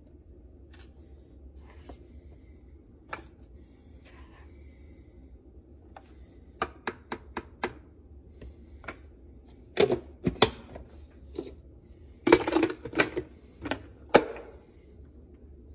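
Scattered clicks and knocks of a coffee scoop against a coffee can and a drip coffee maker's filter basket while ground coffee is scooped in. There is a quick run of taps about seven seconds in, and louder clatter around ten and thirteen seconds as the coffee maker's parts are handled.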